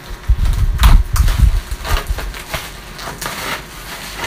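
Scissors snipping through the plastic wrapping of a parcel, the plastic crinkling and rustling in short crackly bursts. Heavy low thumps from handling the parcel come in the first second and a half.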